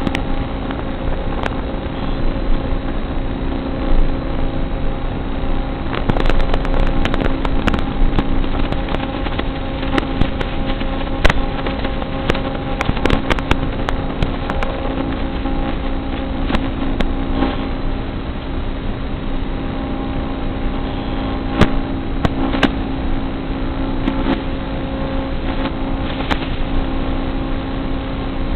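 Small electric motor of a micro FPV RC car whining steadily at a constant pitch, with scattered sharp clicks and knocks throughout.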